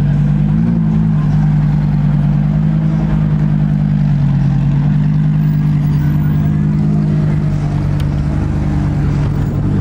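Lamborghini Huracán V10 engines running at low revs as the cars crawl past, a steady low drone with a brief blip in revs under a second in and a slight drop in pitch around four seconds.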